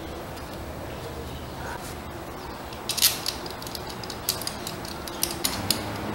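Metal parts and hand tools clicking and clinking as a motorcycle throttle body is fitted back onto the engine and a T-handle socket wrench is set to its fasteners. Sharp, irregular clicks start about halfway through, over a low steady hum.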